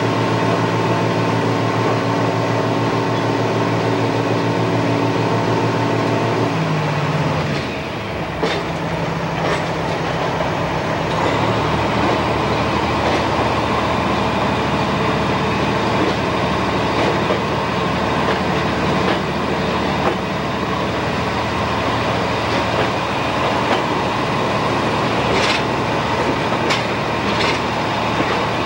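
Moving diesel passenger train heard from on board: a steady engine drone with a pitched hum that changes about seven seconds in, over the continuous rumble of wheels on the track. A few sharp clicks come from the wheels, a couple at about eight to ten seconds and more near the end.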